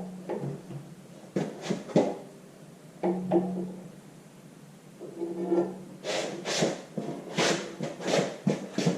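Irregular metal clunks and knocks from handling a hoisted tractor engine while lining it up with the transmission, with a few short creaks; the knocks come quicker and sharper over the last three seconds.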